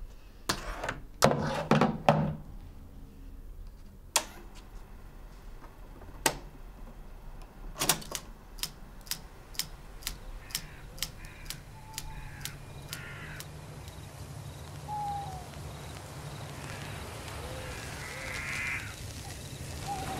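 A string of sharp clicks, evenly spaced at about two to three a second for several seconds, gives way to a steady low hum with a few short bird calls, the loudest near the end.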